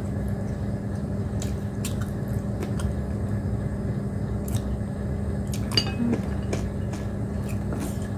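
Someone eating chicken with their fingers from a plate: soft chewing and small clicks of fingers and bones against the plate, over a steady low hum.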